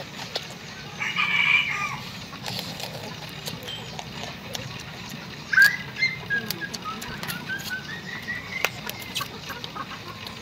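Small clicks and cracks of shrimp shells being peeled and eaten by hand, with a bird calling in the background: one short call about a second in, and from about five and a half seconds in a run of quick chirps that climb in pitch.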